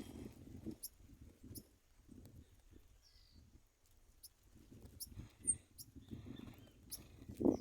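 Small birds scuffling and fluttering close by, an irregular run of rustles and light knocks, with a few very short high chirps.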